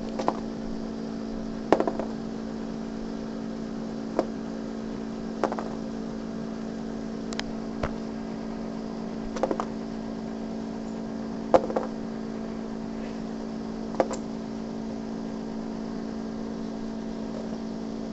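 Small plastic Gogo's Crazy Bones figures being flicked and knocking against each other and the cardboard board: about ten sharp clicks, some in quick pairs, a second or two apart, stopping a few seconds before the end. A steady low hum runs underneath.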